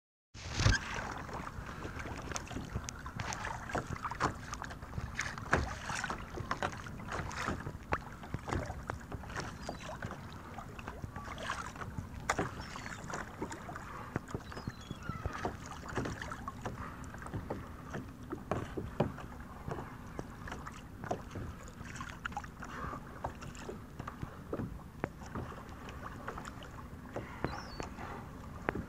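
Sea water slapping and splashing against a kayak's hull on choppy water, with many irregular small splashes and knocks.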